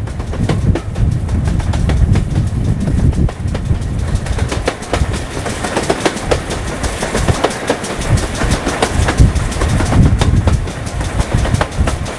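Steam-hauled train behind GWR 4500 class small prairie tank No. 4566 running at speed, its wheels clicking rapidly over the rail joints. It is heard from an open carriage window, with a fluctuating wind rumble on the microphone.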